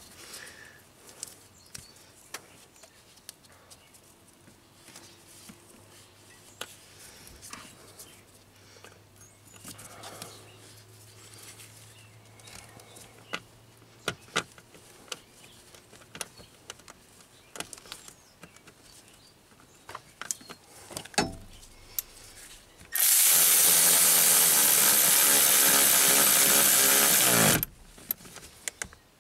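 Cordless drill/driver running for about four and a half seconds near the end, driving in the bolt that fastens a newly crimped ground lug. Before it there are light clicks and knocks of the wire and bolt being handled.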